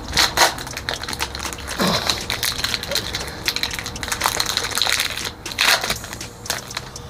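Foil wrappers of Yu-Gi-Oh booster packs crinkling and tearing as the packs are opened, in irregular crackly bursts.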